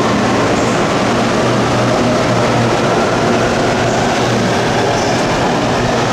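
BTS Skytrain electric train moving along the elevated platform, with steady wheel-on-rail noise and a low motor hum.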